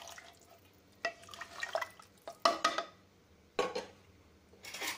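A ladle stirring rice and water in a pressure cooker: several short bursts of sloshing liquid and the ladle scraping against the pot.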